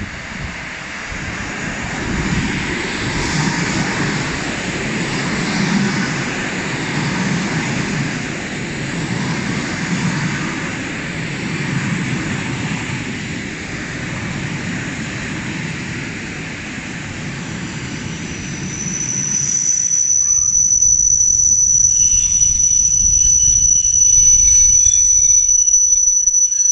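REKS express electric train running past along the platform as it slows, its wheels rumbling on the rails. About twenty seconds in, the rumble stops as the train comes to a stand, and a steady high-pitched whine from the standing train sets in and holds.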